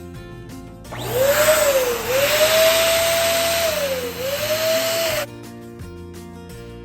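Electric balloon pump blowing for about four seconds, its motor whine dipping and recovering twice before cutting off suddenly. Background music plays underneath.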